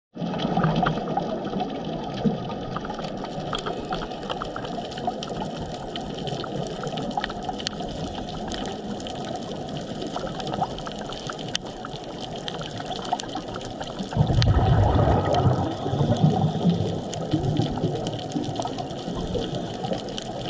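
Underwater ambience recorded in the sea: a steady watery hiss scattered with many sharp clicks. About 14 seconds in, a louder low rushing surge comes and goes for a few seconds.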